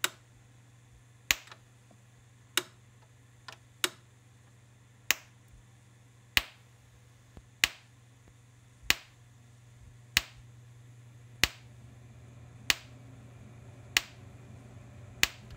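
Gallagher M4000 electric fence energizer (220–240 V, 37 stored joules) pulsing into a jumper wire shorted across its output terminals: a sharp snap with each pulse, about every 1.3 seconds. A steady low hum runs underneath.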